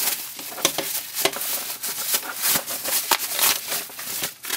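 Packaging rustling and crinkling as the headphones are handled and lifted out, a dense, irregular run of crackles and small clicks.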